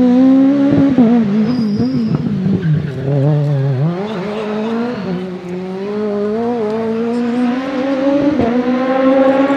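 Peugeot 306 Maxi kit car's 2.0-litre XU10J4RS inline-four rally engine running at high revs. The revs waver up and down for the first few seconds, drop just before four seconds in, then climb steadily under acceleration.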